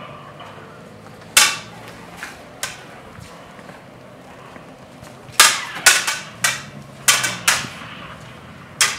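Lightsaber blades clacking together in sparring: a few single sharp strikes early, then a quick run of about seven strikes in two seconds, and one more near the end.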